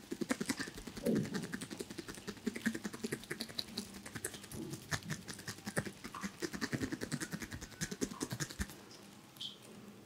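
Fingertips and thumbs rubbing, pressing and pinching the skin of the forehead and eyebrows during a head massage: a rapid run of soft crackling clicks that thins out near the end.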